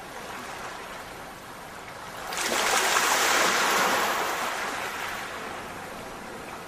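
A rushing, hissing noise with no pitch to it, like breaking surf. It surges suddenly about two and a half seconds in, then slowly dies away.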